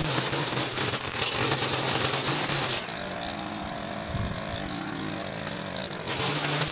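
Small gas engine of a yard power tool running steadily with a constant hum. About three seconds in it cuts off abruptly to a quieter, duller engine sound with a low thump, and the louder running comes back just as abruptly about six seconds in.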